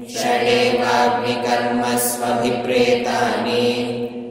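A voice chanting Sanskrit shlokas in a recitation, held on a nearly even pitch with short breaks between phrases.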